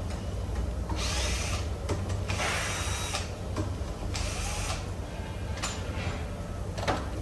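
Workshop tool sounds during an engine overhaul: three short hissing bursts a second or so apart, with scattered clicks and knocks, over a steady low hum.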